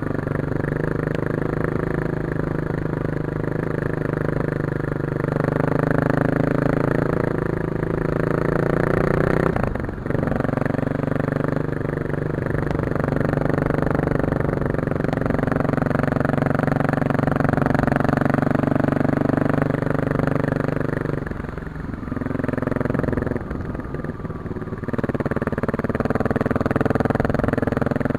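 Kawasaki KLX250S dual-sport motorcycle's single-cylinder four-stroke engine running under way at low trail speed, its note shifting with throttle. The throttle is briefly closed about ten seconds in and eased off for a few seconds near the end before the engine picks back up.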